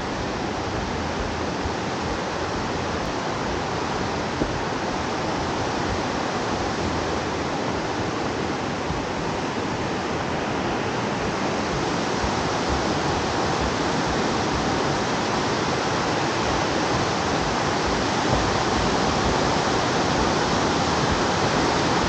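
Steady rushing roar of a white-water river running over rocks, growing slightly louder toward the end.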